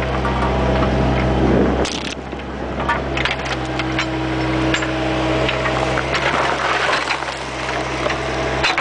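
Bobcat 430 mini excavator running steadily while its bucket scrapes and crunches through dirt and stones, with many scattered knocks and cracks. The low engine sound drops about two seconds in.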